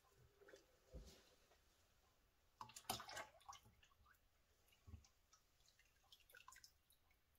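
Faint sounds of lye water poured from a plastic pitcher into a tub of soapmaking oils, the splashing loudest about three seconds in, with a few light knocks of the plastic containers.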